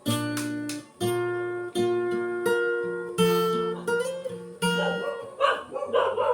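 Acoustic guitar strummed chord by chord, each chord struck and left to ring for about a second. Near the end a wavering, howl-like voice comes in over the guitar.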